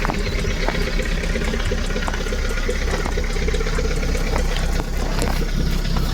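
Hyundai Veloster's 1.6 GDI four-cylinder engine idling steadily through a muffler-delete exhaust, the rear muffler replaced by straight motorcycle exhaust piping, giving a low, even rumble.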